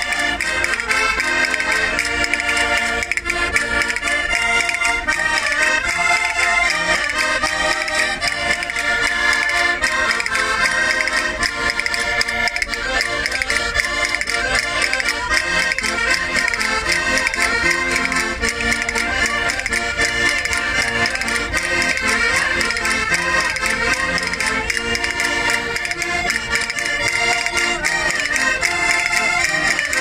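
Several Portuguese concertinas, small diatonic button accordions, playing a lively traditional folk tune together without a break.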